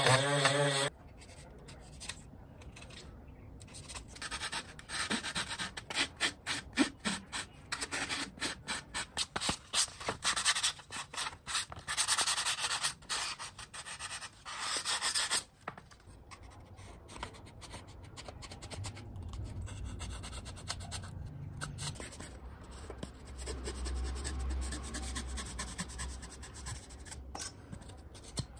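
A large knife blade sawing through a block of thermocol (expanded polystyrene foam) in many quick back-and-forth strokes, a dense scraping rub that stops about halfway through. Softer rubbing and handling of the foam sheet follows. A small drill motor's whine cuts off about a second in.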